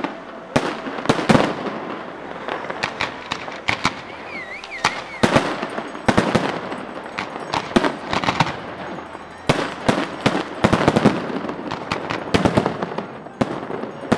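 Aerial fireworks shells bursting in rapid runs of sharp bangs and crackles, with short lulls between the volleys. A brief warbling whistle sounds about four seconds in.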